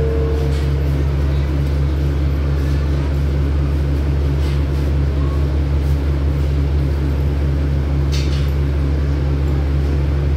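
Diesel passenger train standing at the platform with its engine idling: a steady low drone that does not change.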